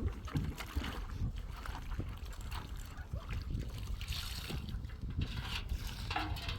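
Wind buffeting the microphone as a heavy, uneven low rumble, with scattered short knocks and rustles over it.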